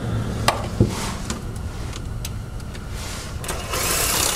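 Scattered metal clicks and clinks as a socket on an extension is worked onto a small oil pan bolt. Near the end a cordless impact tool runs for under a second, backing the bolt out.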